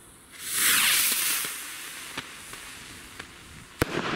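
A firework rocket launching with a loud hissing whoosh that fades as it climbs, then a single sharp bang as it bursts near the end.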